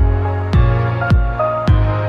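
Background electronic music with a steady kick-drum beat and held synth notes.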